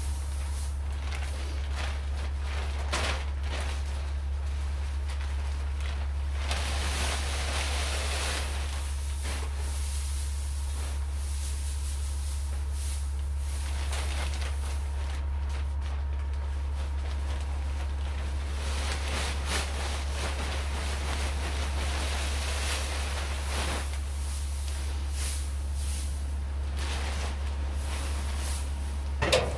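Hay rustling as it is handled and spread in a chicken coop, coming and going in stretches, over a steady low hum. A short knock comes near the end.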